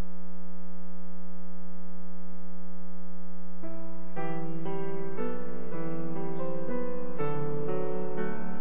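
A steady electrical hum, then a grand piano starts playing about three and a half seconds in, a slow line of notes over held chords.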